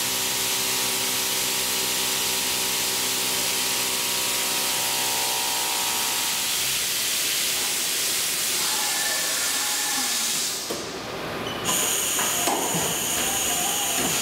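Haas VM3 CNC mill cutting aluminium with a 2-inch dovetail cutter under flood coolant: a steady hiss of coolant spray over a steady multi-tone cutting whine, which fades out about halfway through. After a short dip near the end, a new steady high-pitched machine whine starts.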